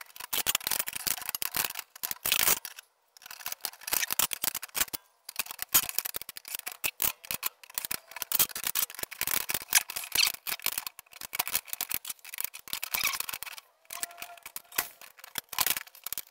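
Rapid, dense clicking and clattering of a laser-cutter bed's rails and comb slats being handled and set into the frame on a wooden desktop. The playback is sped up. The clatter pauses briefly a few times.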